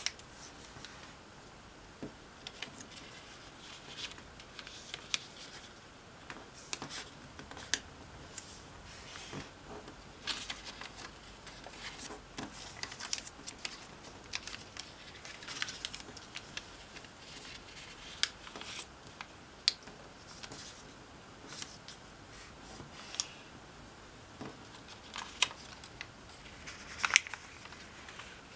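Origami paper being creased, unfolded and handled by hand on a wooden tabletop: irregular crisp paper rustles and snaps, with a few sharper snaps in the second half.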